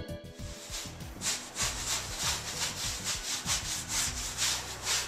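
A damp sponge scrubbing over a clay plaster wall, about three rubbing strokes a second, starting about a second in: sponge compression of the plaster.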